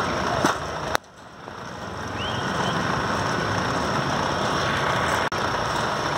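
Steady outdoor background noise at cricket practice nets, with a sharp knock about a second in after which the sound drops away and builds back up over about a second. A short rising-and-falling chirp comes a little later.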